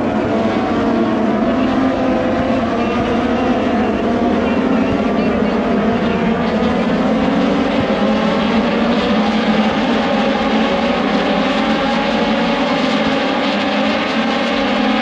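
Several Moto2 race motorcycles running at once, their Triumph 765 cc three-cylinder engines making an unbroken, even drone whose pitches slowly rise and fall as the bikes accelerate and brake.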